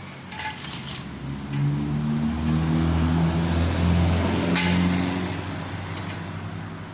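A motor vehicle engine swells in over a second or two, runs loudly with its pitch stepping up and down, then fades away. A few sharp clinks sound near the start and about four and a half seconds in.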